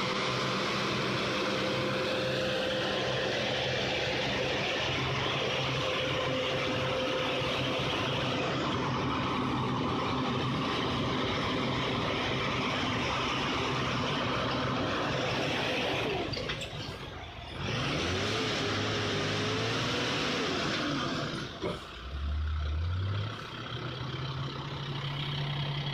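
Heavy diesel vehicle engine running steadily, with a whine over it that holds one pitch and later rises and falls. The sound dips briefly twice in the second half.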